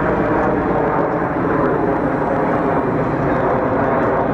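Aircraft engine noise at an air show: a loud, steady rush with no clear pitch to it.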